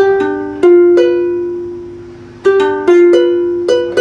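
Ukulele being plucked note by note, each note ringing and dying away: a few notes, one held for nearly two seconds, then a quicker run of notes in the second half. The notes are fretted slowly, as in practising pressing the strings cleanly.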